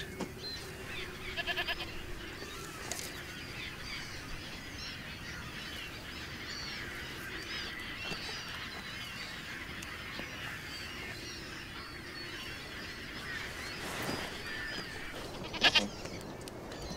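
A goat bleating: a short call about a second and a half in and a louder one near the end, over a faint steady background of small chirps.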